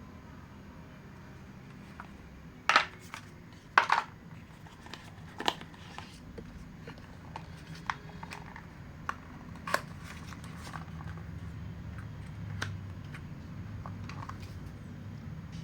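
Hands unboxing a pair of wireless earbuds: irregular sharp clicks and short rustles of packaging being handled, the two loudest about three and four seconds in, over a faint steady low hum.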